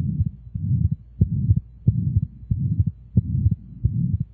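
Recorded heart murmur: a steady rhythm of heartbeats, about one every two-thirds of a second, each thump carrying a low whooshing, swishing noise.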